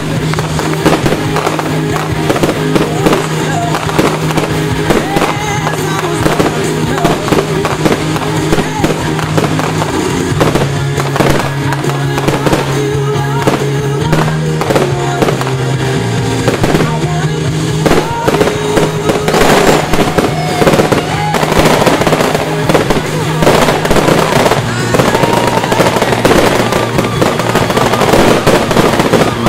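A fireworks display goes off: repeated bangs and crackling shells over music with sustained notes, the crackle thickest about two-thirds of the way through.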